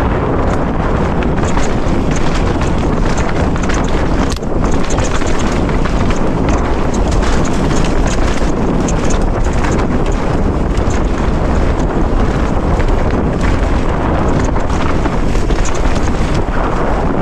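Wind noise on the microphone of a mountain bike descending fast, over the rattle and crunch of its tyres on rock and loose dirt, with frequent sharp clicks and knocks as the bike chatters over stones.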